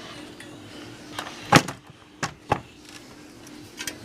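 Several short knocks and bumps, the loudest about one and a half seconds in, from a vintage stereo receiver being handled and turned around on its surface. A faint steady hum runs underneath.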